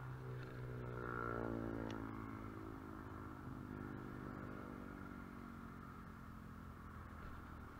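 A motor vehicle's engine passing by at a distance: its hum rises in pitch and grows louder over the first second or so, then drops in pitch and fades as it goes away.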